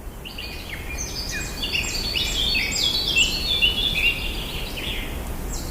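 Several small birds chirping in quick, high, stepped notes that overlap one another, over a steady low rumble.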